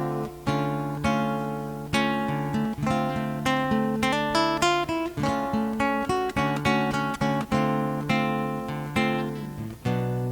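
Acoustic guitar played alone, strumming chords in a steady rhythm with no singing.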